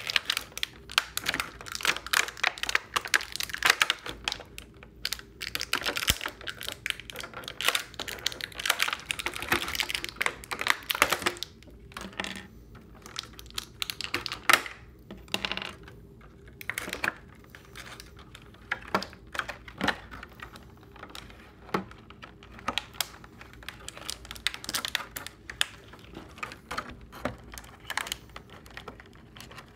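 Clear plastic packaging tray of a boxed action figure being handled and pried at: stiff plastic crackling and clicking irregularly, in quick runs with short pauses, busiest in the first ten seconds or so and sparser afterwards.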